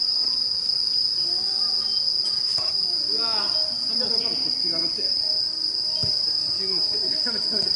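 Night insects chirping in a steady, unbroken high-pitched chorus, with faint shouts of players and occasional soft ball kicks underneath.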